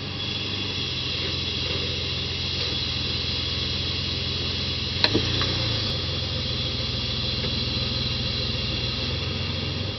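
A Jeep Grand Cherokee's 3.7-litre V6 engine running steadily at low speed with a couple of light rises in revs, with one sharp click about five seconds in.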